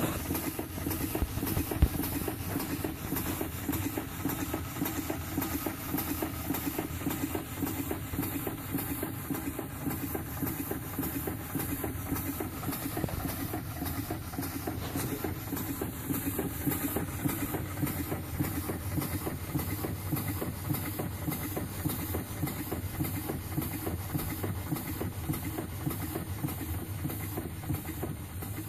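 Model Murdoch Aitken table steam engine running steadily, its rapid exhaust beats mixed with a hiss of steam. A single sharp click about two seconds in.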